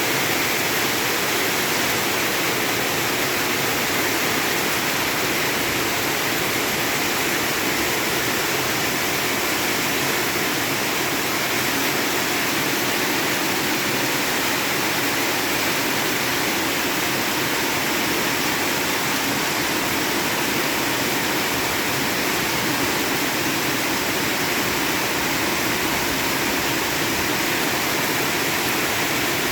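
Torrential monsoon rain falling hard, a steady, even hiss with no let-up.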